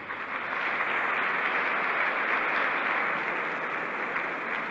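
Large audience applauding: the clapping swells within the first second and then slowly dies away.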